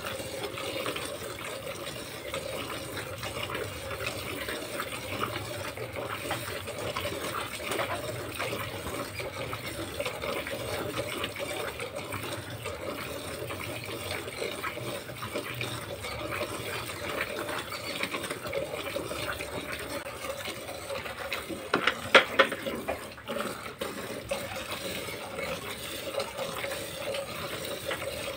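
Milk squirted by hand from the teats in quick alternating jets, splashing into milk in a plastic bucket, over a steady hum. A brief cluster of louder knocks comes about three quarters of the way through.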